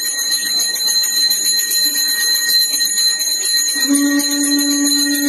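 Temple bell rung continuously, its high ringing tones steady and struck rapidly over and over. About four seconds in, a steady low pitched tone joins it.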